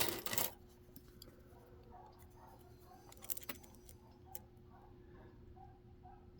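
A brief metallic rattle at the start, then faint scattered clicks and ticks of a hook pick working the pin stack of a Kaba cylinder under tension, with a few sharper clicks about three and a half seconds in.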